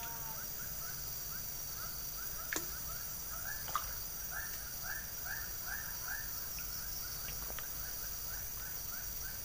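Outdoor wildlife chorus: an animal calls in a steady run of short falling chirps, about three a second, over a steady high-pitched insect drone. Two sharp clicks come about two and a half and nearly four seconds in.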